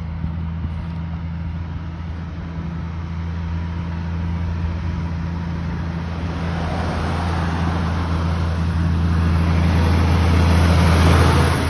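A semi-trailer truck driving past on a wet road. Its engine drone and tyre hiss build steadily over several seconds, loudest just before the end as it passes close, then drop away suddenly.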